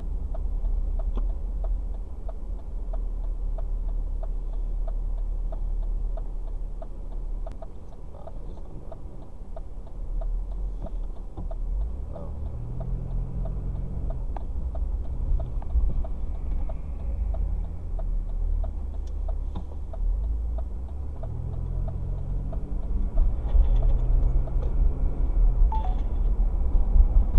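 Car cabin while driving: a steady low road and engine rumble, with a light even ticking through the first half. The engine note rises in steps about halfway through and again near the end as the car accelerates.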